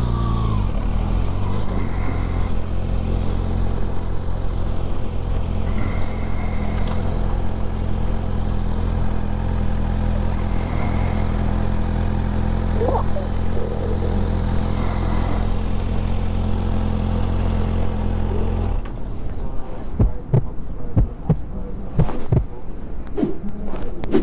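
Kawasaki Ninja ZX-6R inline-four engine running steadily at low revs, then switched off suddenly about 19 seconds in. Scattered clicks and knocks follow.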